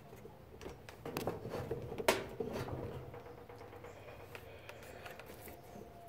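Clicks and knocks of a hand handling the brass lever valves and hoses of a washing machine's water supply. The sharpest knock comes about two seconds in, over a faint steady hum.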